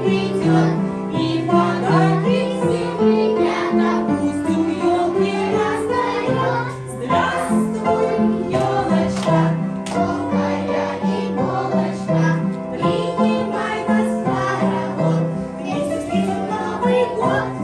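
A children's song with a steady, bouncy bass line, sung by children's voices.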